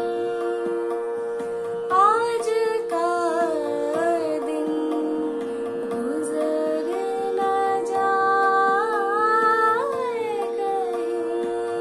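A woman singing a ghazal solo in long, gliding melismatic phrases over a steady drone held on one note.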